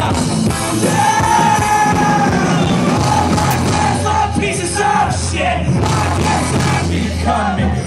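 Rock band playing live through a club PA: a singer's voice, partly yelled, over electric guitar, bass and drums, loud and unbroken.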